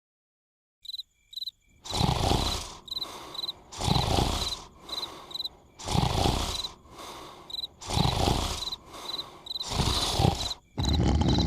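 Cartoon snoring: a loud snore about every two seconds, each followed by a softer breath, over crickets chirping. Near the end a louder, steadier rush of noise begins.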